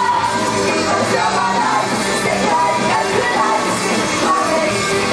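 A girls' idol group singing live into handheld microphones over loud rock-style pop music, amplified through the venue's PA.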